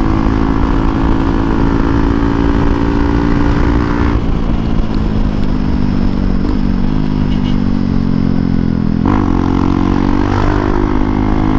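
Hero Xpulse 200 4V's single-cylinder engine running steadily through a Norifumi Noctus T5 aftermarket exhaust while riding, loud enough to drown out talk. The engine note shifts slightly in pitch about four, six and a half and nine seconds in.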